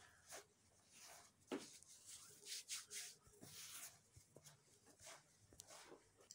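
Faint, irregular soft swishes and rustles of fingertips rubbing and rolling damp flour against a wide dish to form small couscous-like grains.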